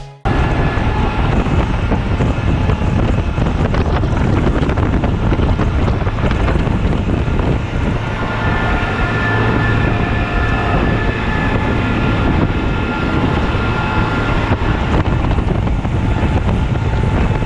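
26-foot Pro-Line fishing boat under way: steady engine and water noise with wind buffeting the microphone.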